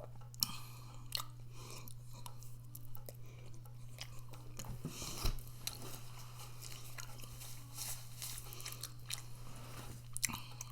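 A person chewing food close to the microphone, with scattered small mouth clicks and crunches. A steady low hum runs underneath.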